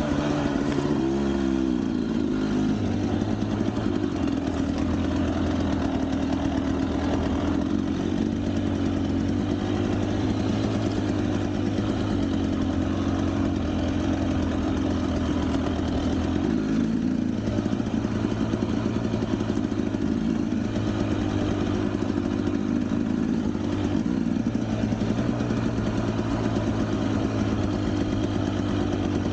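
Vehicle engine running at low, fairly even revs, with a brief rise in pitch about a second in.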